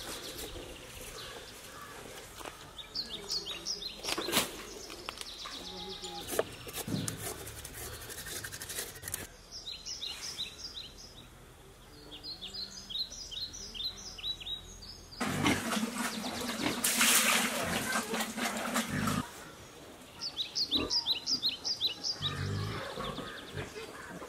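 Small birds chirping in repeated quick runs of short, high, falling notes. About two-thirds of the way through, a louder rough noise with a steady low hum runs for about four seconds.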